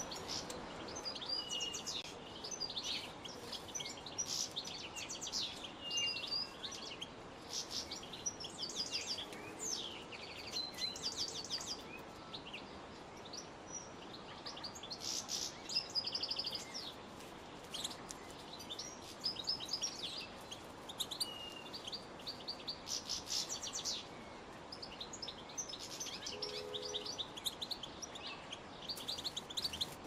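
Goldfinches twittering: many rapid, high chirps and short trills in repeated bursts throughout, over a faint steady background hiss.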